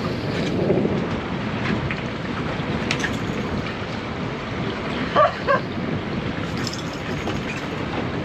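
Wind buffeting the microphone on a boat at sea, a steady rumbling noise, with two short squeaks about five seconds in.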